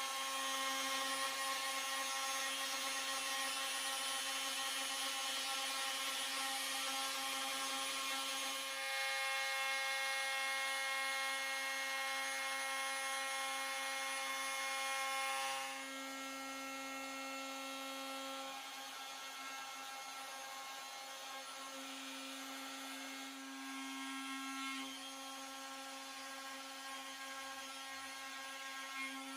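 CNC router spindle running at a steady high-pitched whine while milling a solid wood sign, the cutting hiss rising around a third of the way in and easing off after about the halfway point as the load changes.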